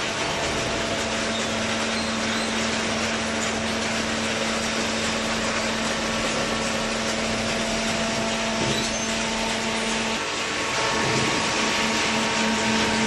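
Hydraulic waste-paper baler running: a steady mechanical din with a constant low pump hum, which falters briefly about ten seconds in and then picks up again a little higher.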